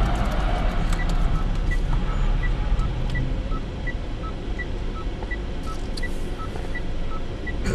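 Steady low rumble inside a car's cabin, with the car's electronic turn-signal or hazard indicator ticking over it: a high tick and a low tick alternating, one about every third of a second.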